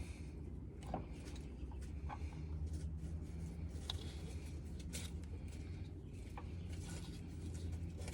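Small steel ball bearings and parts being handled and pressed into greased holes by hand: a few light, scattered metallic clicks and taps over a steady low hum.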